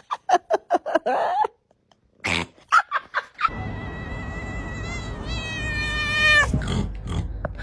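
Cats meowing: a quick run of short meows, a pause, a few more, then one long drawn-out meow of about three seconds that holds its pitch and slides down at the end.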